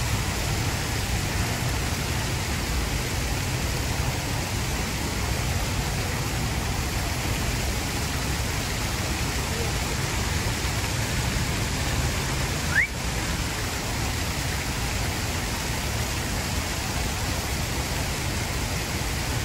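Steady rushing outdoor noise, even and unbroken, with a single short rising chirp about thirteen seconds in.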